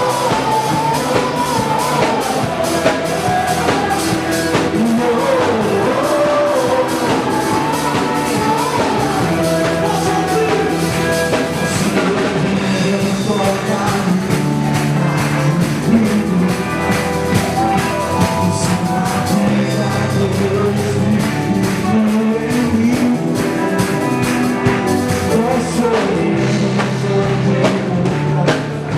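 Contemporary worship song played by a rock band with drum kit and guitar, with a lead voice singing the melody.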